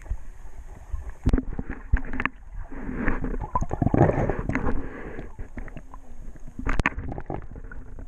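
Muffled underwater sound of a snorkeler swimming, water gurgling and swishing around a submerged camera, swelling for a couple of seconds in the middle. Sharp knocks come about a second in, at two seconds, and near seven seconds.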